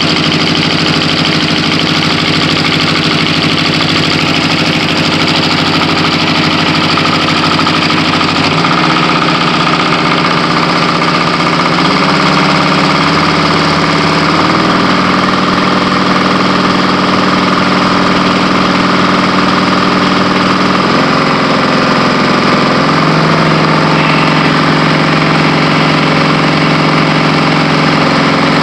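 Kubota G4200's small two-cylinder diesel engine running steadily, its speed changing in steps several times. The engine has just been started after air was bled out of its fuel system.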